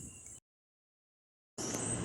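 Faint, steady shop background noise, broken by about a second of dead silence from an edit cut; the noise returns, a little louder and even, near the end.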